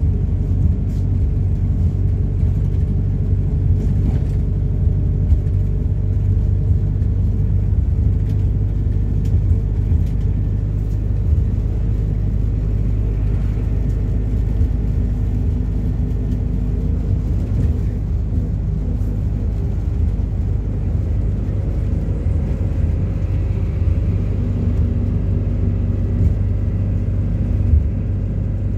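MAZ-226 midibus engine running, heard from inside the passenger cabin as a steady low rumble whose pitch drifts slowly.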